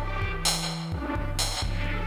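Electronic music from an Artiphon Orba 2 handheld synth: a looping bass line under a drum beat, with a bright hit about once a second.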